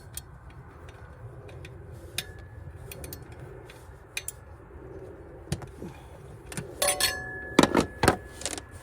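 Metal hand tools clinking and tapping against each other and against metal, with scattered light clicks and a cluster of louder, ringing clinks near the end.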